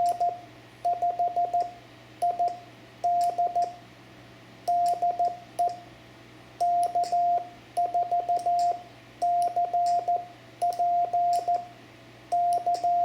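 Morse code (CW) keyed as a single steady mid-pitched tone, short dits and longer dahs grouped into characters with gaps between them. It is one station's sending at the end of its over in a basic QSO, turning the contact back to the other station.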